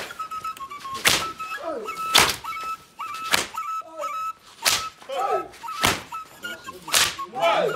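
Heavy, sharp percussion beats at a steady pace of about one a second. Between them run a held high tone that breaks off now and then and a few voices.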